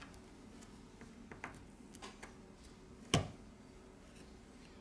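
Plastic pry tool working under a smartphone battery to lift it from the frame: a few faint clicks, then one sharp click about three seconds in.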